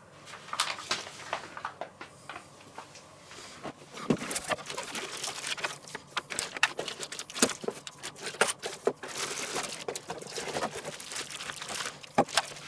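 Plastic packaging crinkling and rustling in irregular crackles and small clicks as parts are pulled out of a cardboard box and a plastic-wrapped radiator is lifted out.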